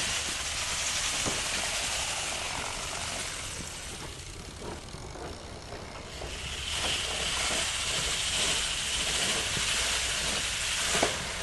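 Magnetic sweeper pushed over concrete strewn with steel shot: a steady hissing rattle of shot being picked up by the turning magnet drum and dropped into the trays. A faint high tone joins about two-thirds of the way in, and there is a sharp click near the end.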